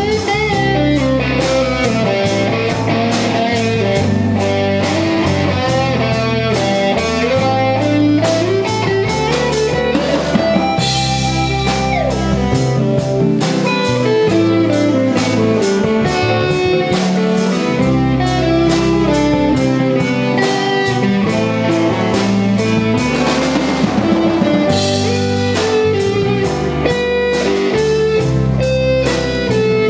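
Small jazz combo playing an instrumental piece: guitar lines over a drum kit and a steady walking bass pattern, with saxophone.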